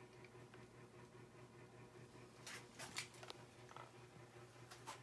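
Near silence: a faint steady low hum with a few light clicks or taps a couple of seconds in.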